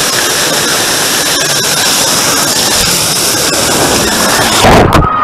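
Rushing water hissing loudly around a rider sliding down a water slide, with spray hitting the microphone. Near the end there is a low splash, and then the hiss drops away suddenly.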